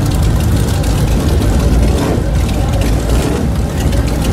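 Custom Suzuki Hayabusa motorcycle engine idling, a steady low rumble as the bike is edged along at walking pace.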